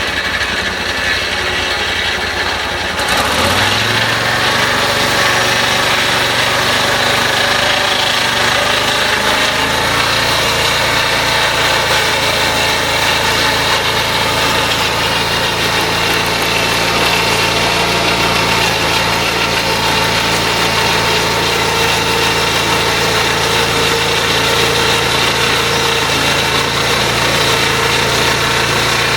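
Vanguard engine of a band sawmill running steadily. About three seconds in it rises in pitch and gets louder as it is throttled up, then holds a steady speed.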